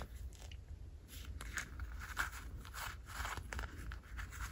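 Faint handling noise from a miniature toy handbag being turned over and its flap worked in the fingers: a scattered series of small clicks, scrapes and rustles.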